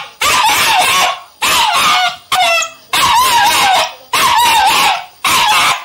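Three-month-old German shepherd puppy barking: six loud, drawn-out barks about a second apart, one of them about halfway through rising into a higher, whining note.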